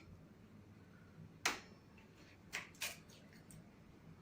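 Light kitchen clatter while the egg goes into the pancake batter: a few short, sharp taps and clicks of things against a mixing bowl. One loud tap comes about a second and a half in, followed by three fainter ones.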